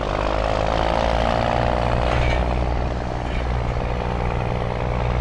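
Fresh-brew coffee machine starting up and running steadily: a low motor hum with a whirring on top.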